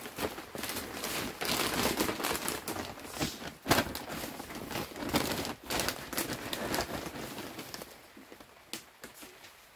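Paper sack of pelleted cow manure rustling and crinkling as it is handled, with one louder crackle about four seconds in; the rustling dies down near the end.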